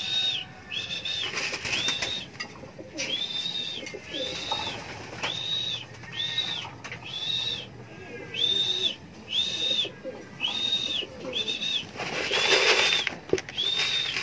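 A pigeon fancier's high, squeaky whistled call, repeated in short notes about once a second, coaxing a homing pigeon on the landing board into the loft trap. A burst of rustling comes about twelve seconds in.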